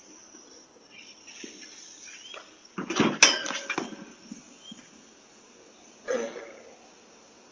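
A man falling onto a concrete driveway beside a basketball hoop's base: a sudden burst of knocks lasting about a second, about three seconds in, and a shorter noise about six seconds in, over the steady high hiss of a security camera's microphone.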